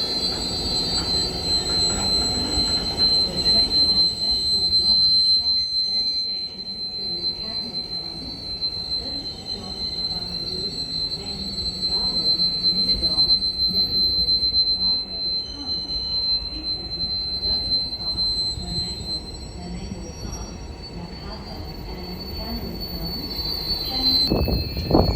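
Train wheels squealing on the rails with a steady high-pitched squeal over a low rumble as a train moves slowly. The squeal fades near the end and briefly returns.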